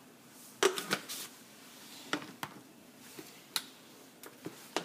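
Seasoning-salt shaker being shaken by hand over raw meat: several sharp, irregular clicks and taps of the plastic shaker.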